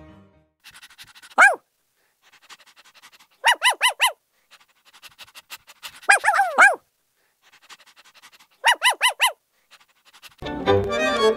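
Small white fluffy puppies yipping: short, high-pitched yips in quick runs of about four, one run overlapping another near the middle, with soft rapid ticks between the runs. Music comes in near the end.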